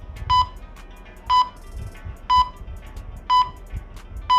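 Electronic countdown timer beeping: short, high beeps of one pitch, one a second, five in all, marking the seconds left to answer.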